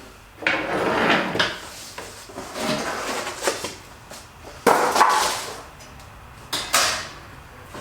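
Cardboard packaging scraping and rustling in several separate bouts as a stuck part is worked loose from it by hand.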